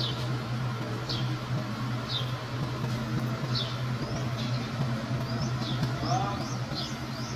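A vehicle engine idling with a steady low hum, while a bird gives short, high, downward chirps about once a second, coming quicker in the second half.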